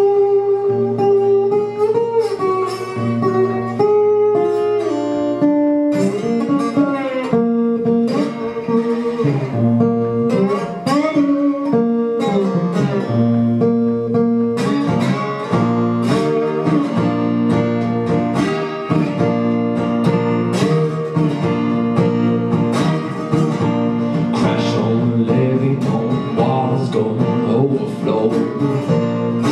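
Solo acoustic guitar playing a blues-style song passage, with some notes sliding in pitch in the first half.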